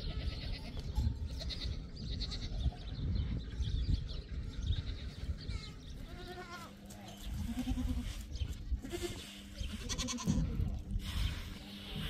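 Goats bleating, several short calls in the second half over a steady low rumble.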